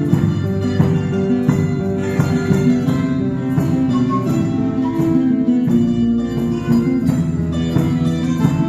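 Instrumental music: strummed and plucked acoustic guitars with sustained melody notes over a steady percussion beat, without singing.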